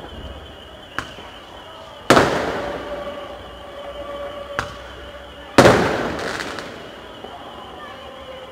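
Fireworks going off: two loud bangs about two and five and a half seconds in, each trailing off in a long echo, with fainter sharp pops about a second in and near the middle.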